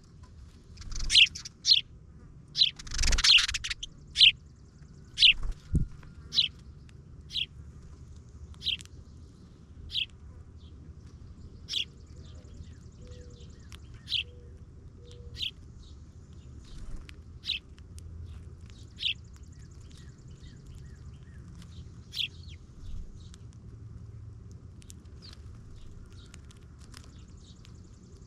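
A small bird repeatedly giving short, sharp chirps. They come quickly at first and then settle to about one every second or two. A louder flurry comes about three seconds in, and a soft thump follows a few seconds later.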